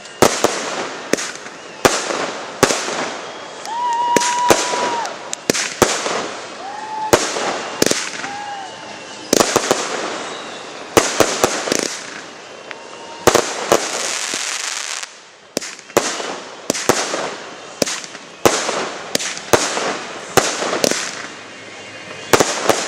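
Aerial fireworks display: a rapid, irregular string of shell bursts and sharp bangs, with crackling between them. A couple of short whistling tones sound among the bangs in the first half.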